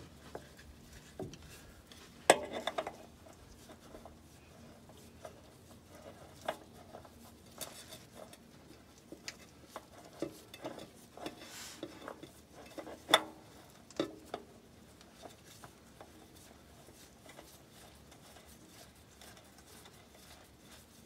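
Spin-on oil filter being turned onto its mount by a gloved hand under a truck engine: scattered light metallic clicks, taps and scrapes. The sharpest knocks come about two seconds in and again about thirteen seconds in, and the sounds thin out over the last few seconds.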